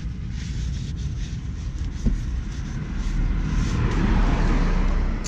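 Low rumble of a road vehicle going by, growing louder about four seconds in and easing off near the end.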